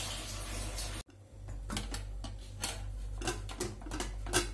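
A few light metallic clinks and taps, sharpest and loudest near the end, as a wire cooling rack is set down onto an aluminium ring-cake pan. A steady hiss fills the first second, before a cut.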